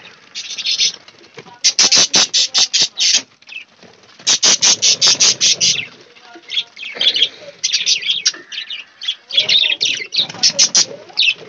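Caged budgerigars and finches chirping: two quick runs of sharp, high chirps, about eight in each, a couple of seconds in and again around four seconds in, then scattered chirps and chatter.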